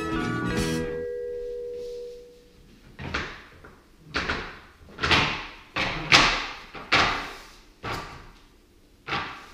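Music fades out; then wooden bed slats, linked by rubber straps, knock down one after another onto a tiled floor as a rolled-up slatted bed base is laid flat, about eight sharp clacks over six seconds.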